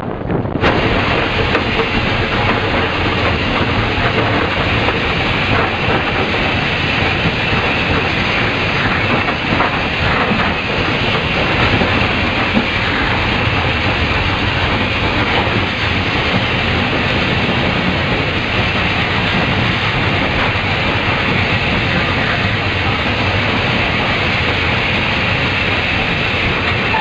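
Cab noise of LMS Black Five 4-6-0 steam locomotive 44767 on the move, heard from the footplate: a steady, loud mix of running and rattling with wheels on the rails and steam hiss. The sound changes a moment after it starts, at a cut between clips.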